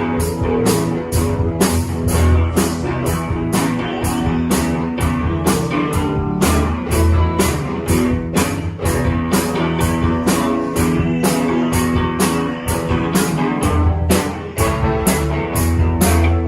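A rock band playing: guitar over drums, with a steady cymbal beat of about two to three strikes a second and strong low notes.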